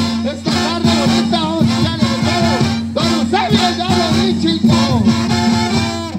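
Zacatecan tamborazo brass band playing live: trumpets, clarinets and saxophone carry the tune over a sousaphone bass line and the beat of the tambora bass drum and cymbals.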